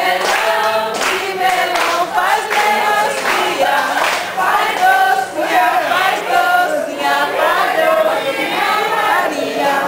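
A group of young men and women singing together while clapping their hands along to the song.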